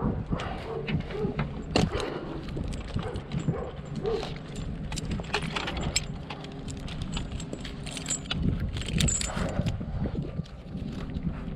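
Irregular metallic clinking and jangling of an arborist's climbing and rigging gear, over a steady low rumble.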